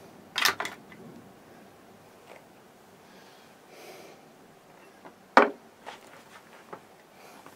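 Cooked mussel shells clicking against a metal spoon and bowl: a few sharp clicks near the start, then one loud sharp knock about five seconds in, followed by a few light ticks.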